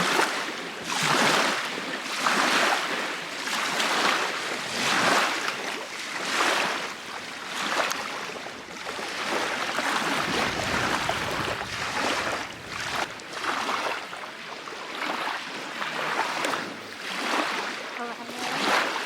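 Small waves washing onto a lakeshore, one swell of rushing water about every second and a half.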